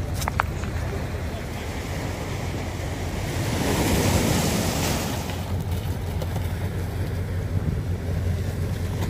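A vehicle engine running steadily under wind buffeting the microphone, with a louder rush of wind about three and a half seconds in.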